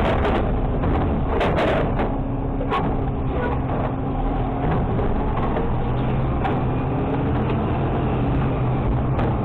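Automated side-loader garbage truck running, its engine and hydraulics droning steadily. Knocks and clatters in the first three seconds come as a cart is tipped and its trash drops into the hopper.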